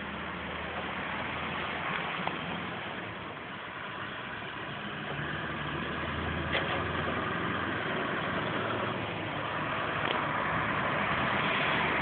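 A Scania truck's engine running steadily and growing slowly louder as the truck comes closer, with a few short clicks.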